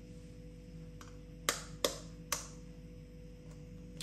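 Three sharp taps on a ceramic bowl about half a second apart: an egg being knocked against the bowl's rim to crack it.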